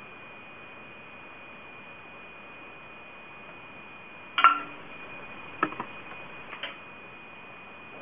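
Three short metallic clicks from the hand-worked metal wire guides and bobbin carriers of a homemade maypole braiding machine, the first about halfway through the loudest with a brief ring. A steady faint hiss and a thin high tone run beneath.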